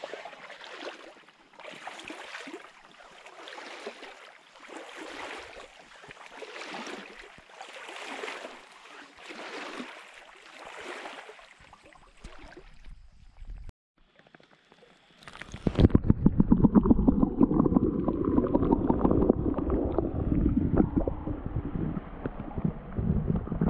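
Rhythmic swishing steps wading along a small stream, about one every second and a bit. About fifteen seconds in, a camera microphone is pushed underwater, and the stream's current takes over as a much louder, rumbling gurgle.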